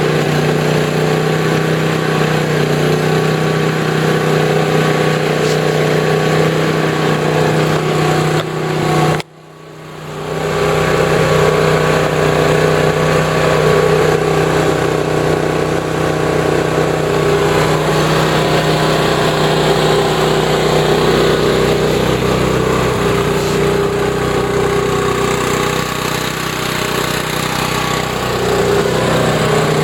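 Champion 3100-watt inverter generator's engine running at a steady speed with economy mode off, just after a cold start with the choke now off. About nine seconds in the sound cuts out abruptly and comes back over a couple of seconds.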